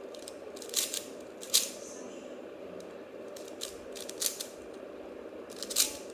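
Plastic 3x3 speed cube being turned: scattered sharp clacks of its layers snapping round, about half a dozen, over a steady low hum.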